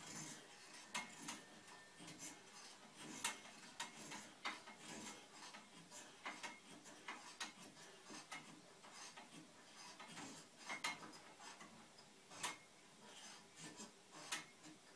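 Faint, irregular clicks and ticks over a low hiss.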